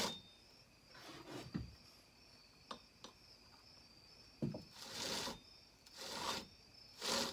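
Saw chain pulled by hand along a chainsaw bar in short strokes, a rasping rattle of the chain's drive links running in the bar groove with each pull. There are about five pulls, coming roughly once a second near the end, with a couple of small clicks between them. The chain now slides freely after the pinched bar rails were spread back open.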